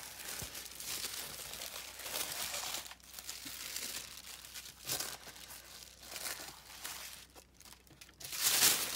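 Packaging being handled and unwrapped by hand: irregular crinkling and rustling, with a louder burst near the end.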